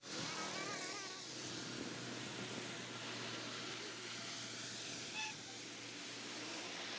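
Faint outdoor ambience: a steady, even hiss with a few short chirping calls, one near the start, one about five seconds in and one near the end.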